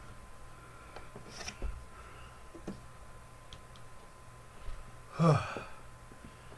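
Mostly quiet with a few faint clicks, then about five seconds in a man lets out one loud sigh that falls in pitch, the exhale of exertion after spinning a hand-drill spindle.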